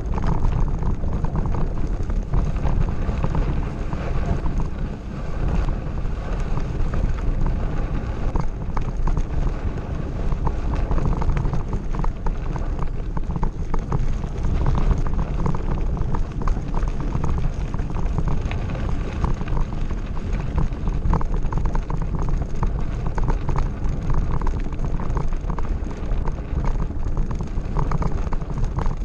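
A mountain bike riding over a gravel track, with wind buffeting the microphone and a constant crackle of tyres on loose stones and the bike rattling.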